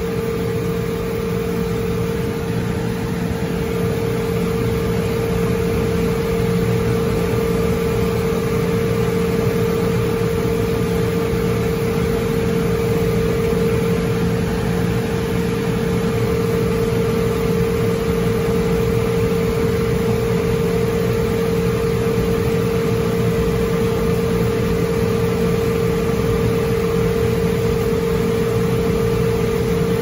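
Liebert/Vertiv precision cooling unit running: a steady mechanical hum with a constant mid-pitched tone.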